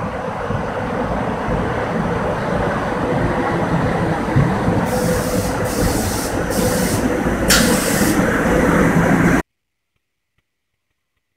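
SEPTA electric commuter train pulling into the platform, its wheels and running gear rumbling loudly and building slightly, with four short hisses of air between about five and eight seconds in. The sound cuts off abruptly at a video cut, leaving near silence.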